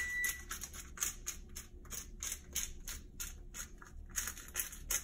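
Hand-twisted seasoning grinder crunching out coarse grains in quick, irregular scratchy strokes, several a second. A short electronic appliance beep sounds right at the start.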